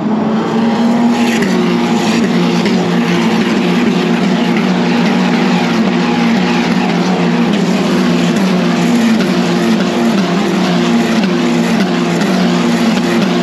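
Race car engines at high revs, loud and continuous, their pitch stepping up and down as they change gear.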